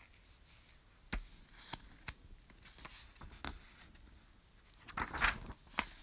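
Faint clicks from a book being handled, then about five seconds in a page turned with a short papery rustle.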